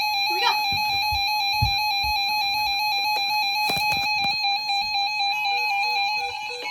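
Emergency Alert System attention signal: a loud, steady two-tone alert tone that starts abruptly and holds at one pitch, with a few short gliding chirps and low thumps over it.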